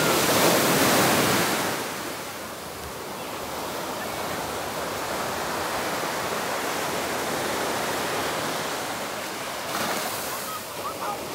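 Surf breaking and washing onto a sandy beach, one wave swelling loudest over the first two seconds before the wash settles to a steady lower rush.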